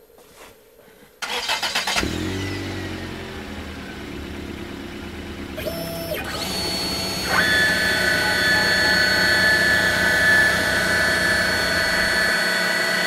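CNC router spindle motor starting up about a second in, then running with a steady whine that steps up in pitch twice about halfway through as it comes up to speed.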